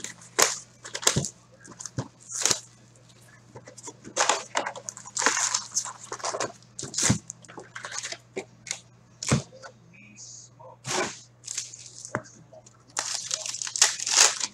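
Cellophane shrink wrap crackling and tearing as it is stripped off a Fleer Showcase hockey card box, followed by handling of the cardboard box and its foil packs. An irregular string of sharp crackles and rustles, with a denser burst of crinkling near the end as a foil pack is handled.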